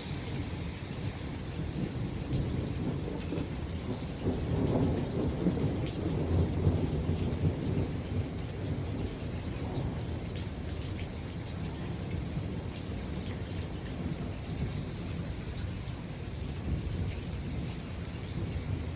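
Steady rain falling, with a roll of thunder that builds about four seconds in, swells, and rumbles away over the next few seconds.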